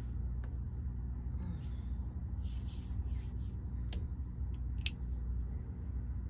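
Blanket and bedding rustling as a person shifts in bed, with two sharp clicks about a second apart, over a steady low hum.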